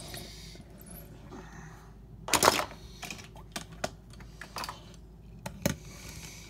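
Sharp clicks and knocks of small hard objects: one loud clatter about two and a half seconds in, then several lighter taps.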